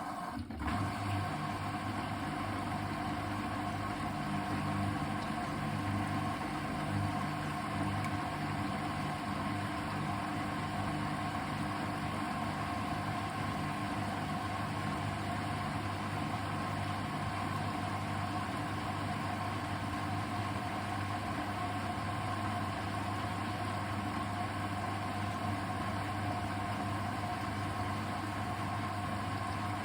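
Hoover VHD 812 washing machine running its cotton cycle: the drum motor gives a steady hum that changes briefly about half a second in, then holds level.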